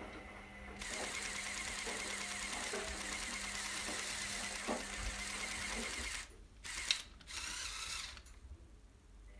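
Small Lego electric motors and their gear trains running, driving a motorized Lego pneumatic excavator. A steady whirring starts about a second in and cuts off about two-thirds of the way through, followed by two short bursts of running.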